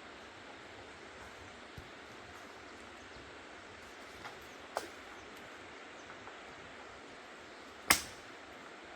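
Steady outdoor hiss with a few faint ticks, then one loud sharp knock about eight seconds in that dies away quickly.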